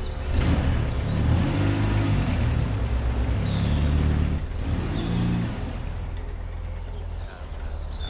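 Mitsubishi Lancer Evolution's engine running, its revs rising and falling several times, with birds chirping faintly.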